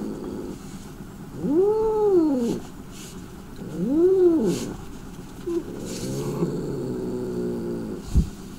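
An angry domestic cat yowling. Two long wails each rise and fall in pitch, about a second and a half and four seconds in, followed by a lower, steadier moan. A short soft thump comes near the end.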